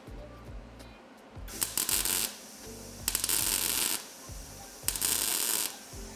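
MIG welder laying three short tack welds on thin car-body sheet metal, each a crackling, sizzling burst of just under a second, the bursts about a second and a half apart.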